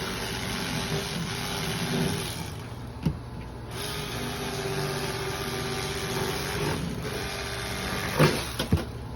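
A motor running steadily with a held pitch, with a sharp click about three seconds in and a few knocks near the end.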